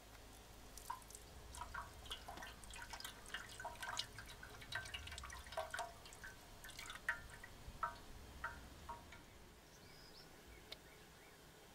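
Used engine coolant draining from a Honda CB500F's cooling system, dripping and splashing in irregular drops that thin out toward the end. There is one small click near the end.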